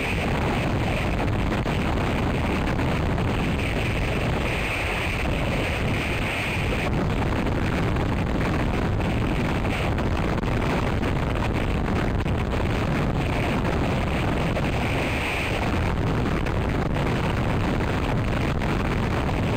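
Strong gusty wind buffeting an outdoor camera microphone: a steady loud rushing and rumbling, with a hiss that swells with the gusts a few seconds in and again later.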